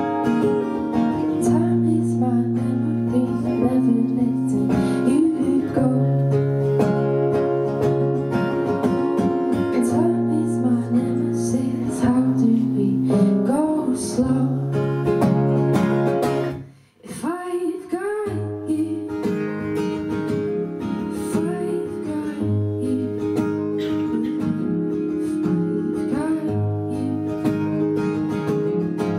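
Live acoustic guitar, strummed and picked steadily, with a woman singing over it. The music stops for about a second just past the middle, then the guitar comes back in.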